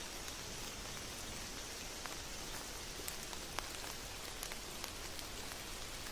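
Steady rain falling, with single drops striking close by now and then; the sharpest strike comes about three and a half seconds in.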